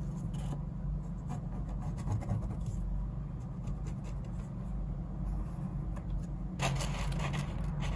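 Pen scratching on paper as a pattern line is traced, soft and intermittent over a steady low hum. From near the end, louder paper rustling as the sheet is handled.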